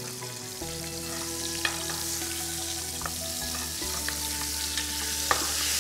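Flour-dredged lemon sole fillet sizzling steadily in hot vegetable oil in a frying pan, with a couple of light clicks.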